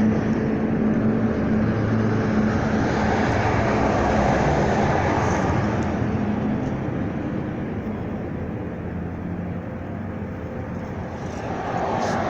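An engine going by: a steady rumble with a low hum, slowly fading over several seconds and swelling briefly again near the end.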